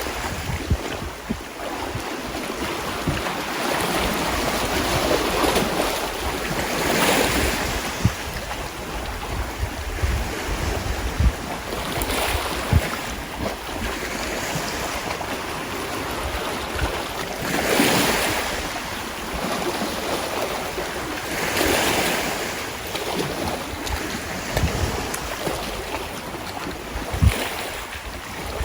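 Sea waves washing in, swelling and falling back in surges every few seconds, with wind buffeting the microphone in low rumbles and thumps.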